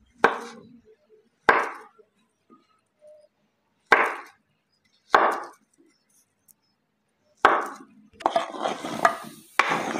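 A knife cutting fruit on a cutting board: single chopping strokes a second or more apart, then a quicker run of cuts near the end.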